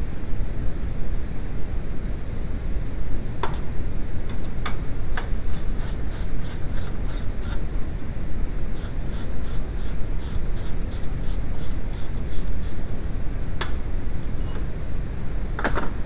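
Steady noise, heaviest in the low end, added over the soundtrack to mask shop radio music. A run of light clicks, about three to four a second, is heard from about six seconds in to about thirteen, with a few single clicks before and after.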